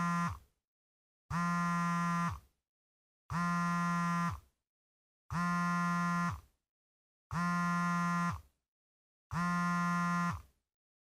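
Smartphone vibrating on a bed with an incoming call: a steady, even-pitched buzz about a second long, repeating every two seconds, each buzz sagging in pitch as it stops.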